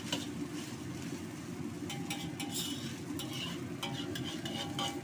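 Fried rice sizzling in a wok as it is stir-fried, with a metal wok ladle scraping through the rice and clinking against the pan, the clinks coming thicker in the second half.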